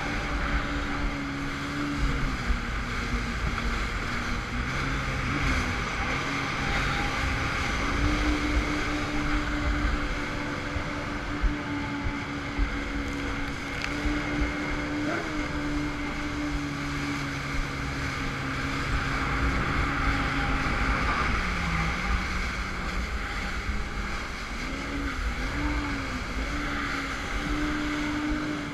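2005 Yamaha FX Cruiser High Output jet ski's four-stroke engine running at speed, its note steady but easing and picking up again a few times as the throttle changes. Rushing water and wind on the microphone run underneath it, with a few sharp knocks as the hull hits chop and wake.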